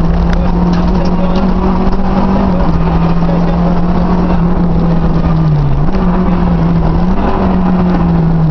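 Renault 5 GT Turbo's turbocharged 1.4-litre four-cylinder engine running hard at speed, heard from inside the cabin over heavy road and wind noise. The engine note holds fairly level, dips briefly about two-thirds of the way through, then picks back up.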